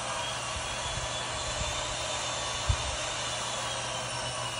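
Cordless drill with a long bit extension running steadily as it drives a washer-head screw up into a glass-rail spigot, with a faint motor whine that dips slightly in pitch near the end. One short knock about halfway through.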